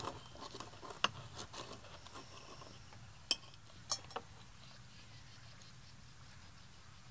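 Knife and fork clinking and scraping against a plate while cutting food: a few scattered sharp clinks, the loudest about a second in and two more between three and four seconds in.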